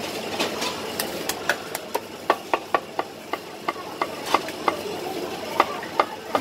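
Steel Chinese cleaver chopping poached chicken on a wooden chopping board: a run of sharp, irregular knocks, about three a second, over background hubbub.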